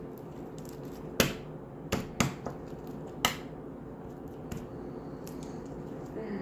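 Hands pulling apart partly dried slime, with four sharp clicks or snaps: one about a second in, two close together around two seconds, and one just after three seconds, then fainter ticks.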